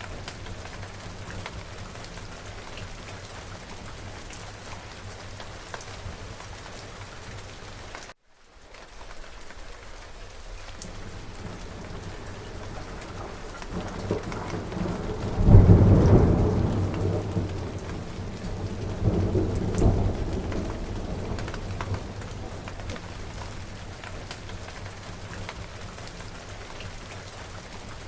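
Steady rain falling, with a rolling thunderclap building past the middle and a second peal of thunder a few seconds later, both fading back into the rain. The sound drops out briefly about a third of the way in.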